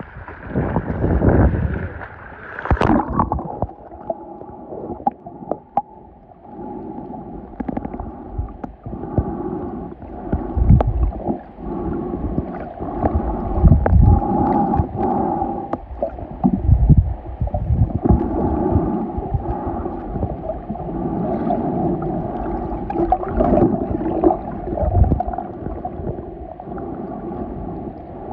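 Water sloshing at the surface, then from about three seconds in the muffled sound of a camera under water: gurgling, moving water with repeated low thumps and a faint steady hum.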